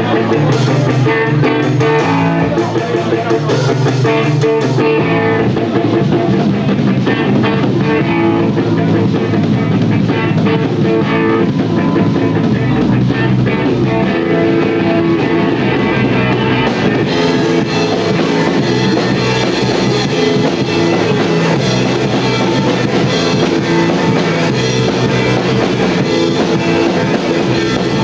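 A rock band playing a song live, with electric guitar and drum kit. About two-thirds of the way through, the sound turns brighter and fuller.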